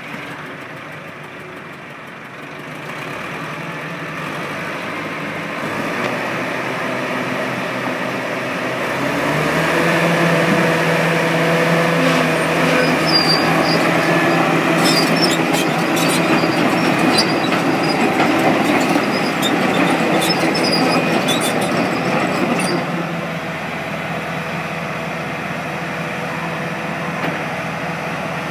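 Crawler loader's diesel engine running just after start-up, rising to a louder, higher-revving note about nine seconds in as the machine drives and works its bucket, with metallic clanks and squeaks from the steel tracks, then settling lower near the end.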